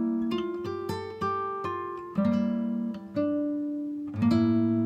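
Background music: acoustic guitar playing plucked chords, new notes struck about once a second and ringing out between them.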